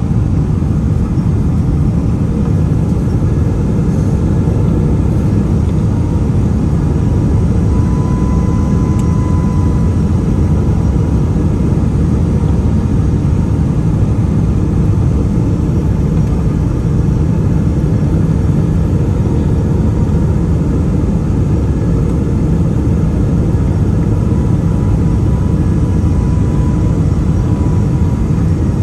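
Boeing 777-300 airliner on approach: a steady, deep rumble of jet engines and airflow, with a faint thin whine that grows slightly stronger a few times.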